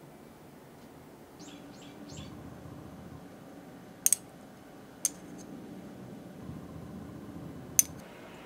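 Handling noise: a low rustle with three sharp clicks, the first a quick double and the last the loudest. Three short high chirps come about a second and a half in.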